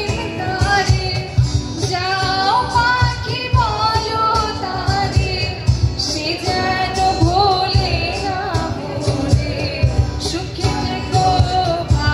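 A woman singing a Bengali song live, accompanied by strummed acoustic guitars and a steady beat on a cajon.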